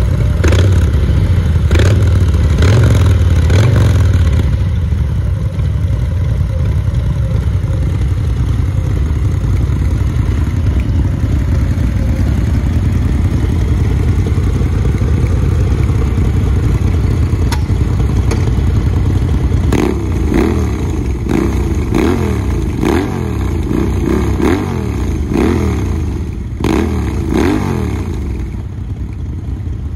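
Two Harley-Davidson V-twins running through custom exhausts: a Fat Boy 114 and a V-Rod. The Fat Boy's engine is blipped several times at the start, then both idle steadily; from about two-thirds of the way in, the V-Rod's engine is revved in a quick series of short throttle blips, each rising and falling in pitch.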